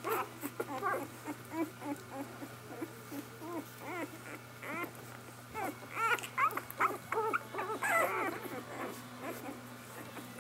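A litter of one-week-old puppies squeaking and whimpering as they nurse: many short, high squeaks in quick runs, busiest near the middle and toward the end.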